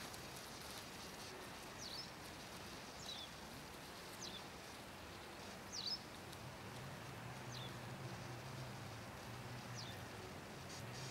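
A songbird giving six short, high calls, each falling in pitch, a second or two apart, over faint outdoor background noise. A low steady hum comes in about halfway through.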